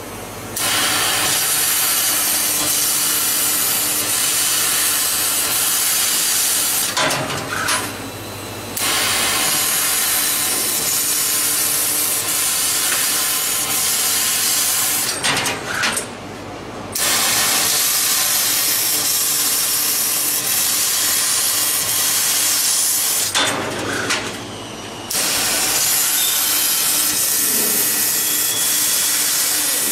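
YAG laser cutting machine cutting steel plate: a loud, steady hiss from the cutting head. The hiss drops out three times for a second or two between cuts, leaving a low hum.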